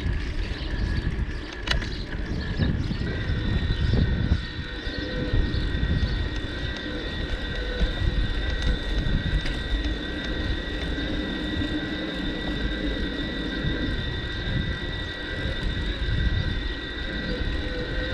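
Riding noise of a bicycle on a rough track: a constant rumble of tyres and wind on the microphone, with a steady high whine that steps up in pitch about three seconds in and then holds.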